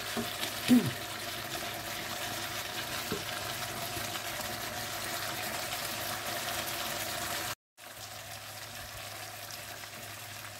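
Red curry sauce of pork belly and bamboo shoots sizzling and bubbling in a wok, a steady hiss. A brief voice-like sound about a second in, and the sound cuts out for a moment about seven and a half seconds in.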